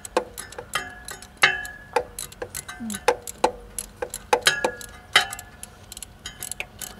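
Ratcheting socket wrench clicking in short irregular strokes as it tightens the thermostat housing bolts on a Jeep 4.0-litre straight-six, with some sharper metallic clinks that ring briefly.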